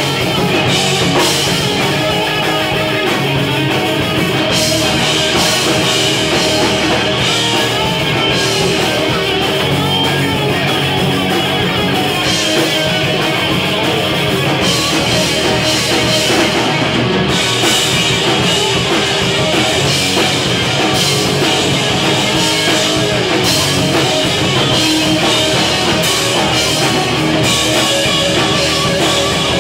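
A rock band playing live: electric guitar, bass guitar and drum kit, loud and unbroken.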